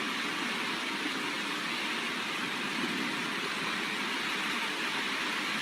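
Heavy rain falling in a steady, even hiss, with no thunder or other sudden sounds.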